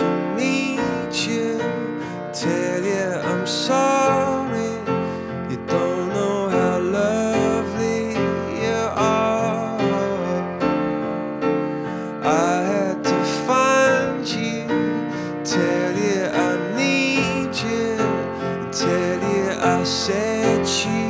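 Background music led by piano.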